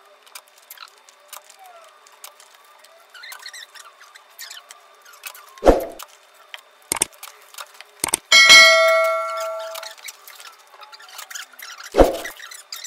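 A bright electronic chime, a subscribe-button sound effect, rings just past the middle and fades over about a second and a half. Under it, the soft rustle of rose stems being handled is broken by two sharp knocks, one about halfway through and one near the end.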